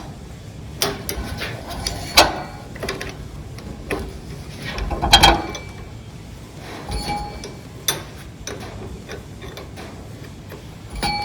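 Metal hand tools clinking and clicking against a tractor diesel engine's fuel injector line fittings as the lines are undone: irregular sharp clicks and knocks, a few with a short metallic ring, the loudest about two and five seconds in.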